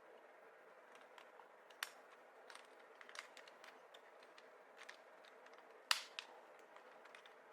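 Scattered small clicks and taps of hard plastic parts being handled and fitted together, with two sharper, louder snaps about two seconds and six seconds in, over a faint steady hiss.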